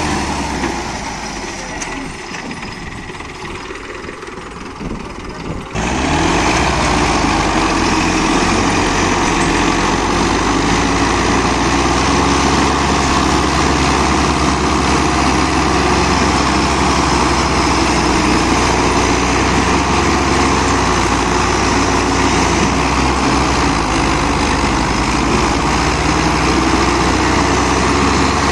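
Two diesel tractors chained back to back in a tug-of-war, both engines running hard under full load and belching black smoke. The sound is quieter for the first few seconds, then turns suddenly loud about six seconds in and stays a steady heavy engine racket.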